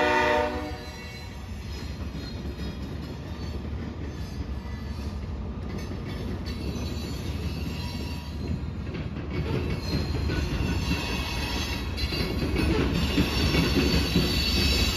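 A diesel train horn chord cuts off about half a second in. A BNSF freight train's cars then roll past with a steady rumble and clatter of wheels on rail, getting louder in the last few seconds, with a thin wheel squeal near the end.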